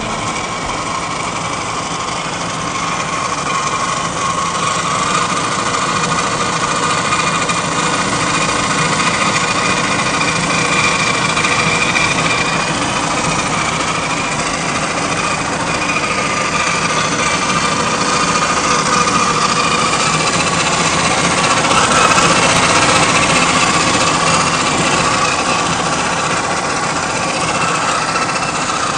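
Gmade GS02F Buffalo RC scale crawler driving over a dirt trail: its electric motor and geartrain whine steadily, the pitch drifting up and down as the truck speeds up and slows.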